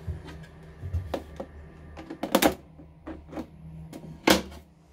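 About seven sharp plastic clicks and clacks at a home breaker panel as the circuit breakers are switched back on to restore mains power and the hinged clear cover is handled. The loudest clack comes near the end.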